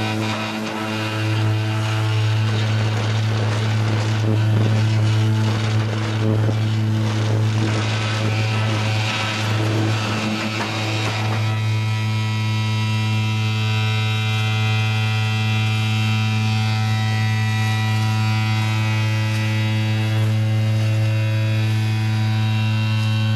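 Vibrating egg-layer concrete machine running with a loud, steady hum, its high-frequency mould vibration for dry-cast concrete. For about the first eleven seconds a gritty rattle of dry-cast concrete filling the kerbstone moulds lies over the hum.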